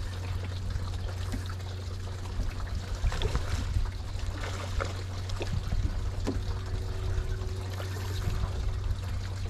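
Water lapping and trickling against a small boat's hull, with a steady low rumble underneath.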